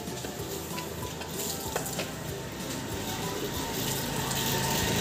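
Cow being milked by hand: streams of milk squirting into a small steel pot, a noisy spray sound that grows louder toward the end.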